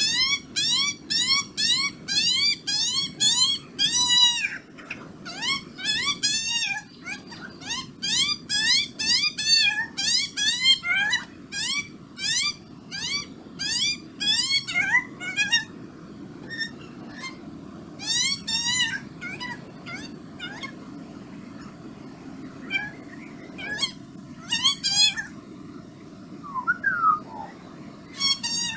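Juvenile Australian magpie begging for food: a rapid series of short, high, harsh calls, about two to three a second. The calls thin out after about fifteen seconds and return in a couple of short bursts later.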